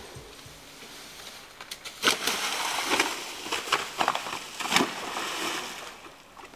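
Dry fallen leaves crunching and rustling underfoot as a person slides and runs down a leaf-covered slope. The crunching starts about two seconds in, with several sharp crunches, and fades near the end.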